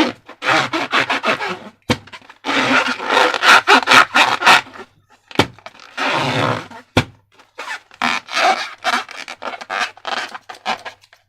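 Slime being worked by hand: bouts of wet squishing and crackling with many small air-bubble pops, and a few sharp snaps between the bouts.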